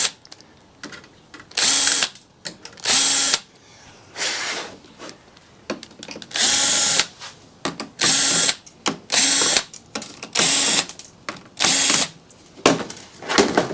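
Power drill-driver backing out screws in short runs of about half a second, roughly nine times, with brief pauses between, as a server power supply's casing is taken apart.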